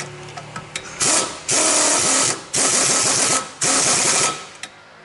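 Power wrench, likely an impact wrench, running in four bursts of just under a second each with a fast rattle, driving in the rear shock absorber mounting bolts.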